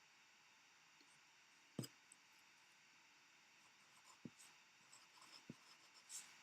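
Near silence: faint room tone with a few soft clicks and some light rustling.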